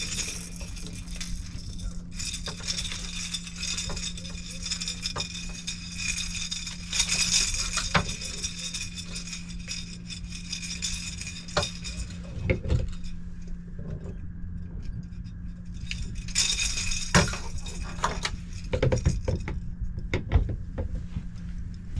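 Clinks, rattles and knocks of fishing gear as a freshly landed catfish is unhooked and handled on a boat, over the steady low hum of the boat's motor pushing it at trolling speed.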